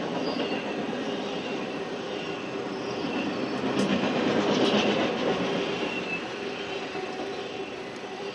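Norfolk Southern intermodal freight train's trailer-carrying flatcars rolling past, heard from inside a car: a steady rumble of wheels on rail with short high wheel squeals now and then. It grows loudest about four to five seconds in, where a couple of sharper clacks stand out.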